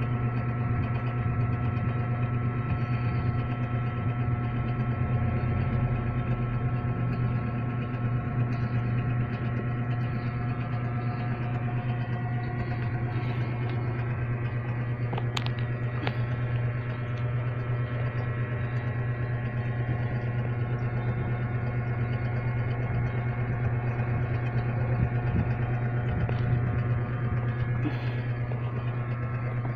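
Trident CA7 power amplifier running with its cover off: a steady low hum and whir.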